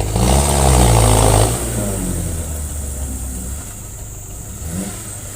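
An off-road vehicle's engine revs, its pitch rising and then falling, loudest in the first second and a half. It then runs on steadily and grows quieter.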